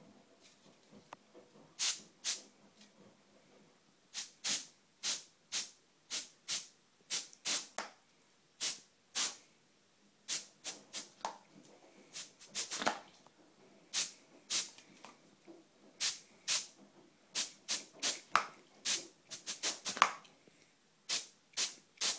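Compressed-air pet spray can with a straw nozzle, fired in dozens of short hissing puffs, about two a second, starting about two seconds in.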